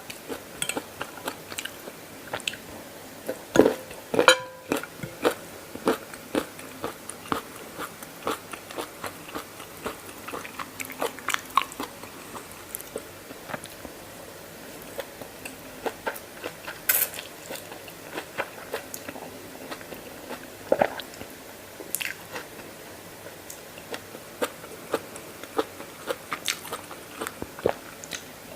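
A person chewing crunchy peanuts in a mouthful of mee yam noodle salad close to the microphone: many irregular crisp crunches, with a few louder cracks.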